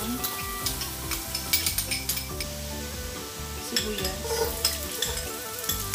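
Minced garlic sizzling and crackling in hot cooking oil in a pot. Chopped onion is tipped in about four seconds in.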